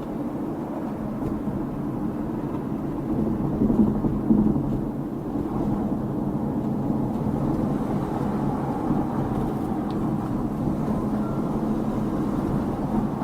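Car driving, heard from inside the cabin: a steady low rumble of engine and road noise, swelling louder for about a second around four seconds in.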